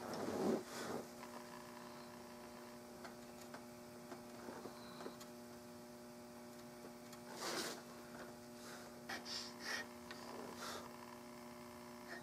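Steady electrical hum with faint rubbing and short scrapes as hands shift a checkered walnut rifle stock and work a hand checkering tool along its grip. The loudest rub comes about half a second in, another about seven and a half seconds in, and a few short scrapes near the end.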